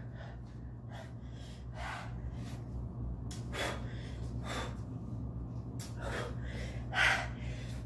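A man gasping and breathing hard through his open mouth: a run of sharp, noisy breaths in and out, about one a second, the loudest near the end. His mouth and lips are burning from a spoonful of very hot pepper sauce.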